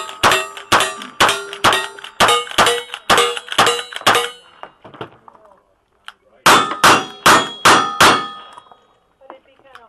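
Lever-action rifle firing a rapid string of about ten shots, each answered by the ring of a struck steel target. After a pause of about two seconds, a second quick string of revolver shots rings the steel again.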